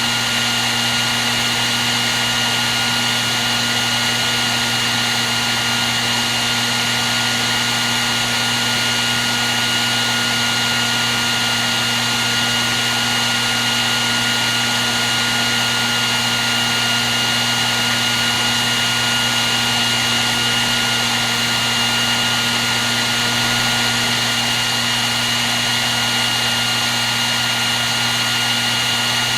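Hair dryer running continuously at a constant setting: a steady rush of blown air over an even motor hum with a thin high whine.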